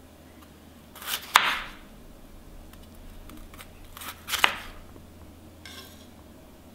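Chef's knife slicing through meat-stuffed bitter melon on a wooden cutting board, twice, about three seconds apart. Each cut is a short crunch that ends in a sharp knock of the blade on the board.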